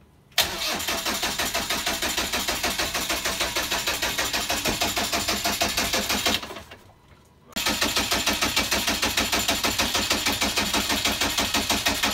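Sailboat's inboard marine diesel engine running with a rapid, even beat on its just-refitted and bled injection pump. It stops a little past the middle for about a second, then starts and runs again.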